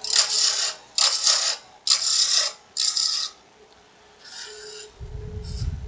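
Turning tool cutting into a spinning, dry aspen goblet blank on a lathe: four short hissing cuts about a second apart, then lighter, fainter cuts, with a low rumble near the end.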